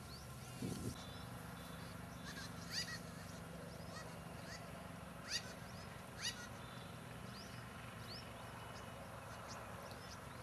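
Birds chirping, a few short sharp downward chirps, over a steady low hum that sets in about a second in.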